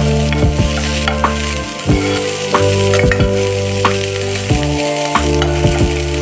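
Food sizzling as it fries in a pan while a spoon or spatula stirs it, knocking against the pan about a dozen times.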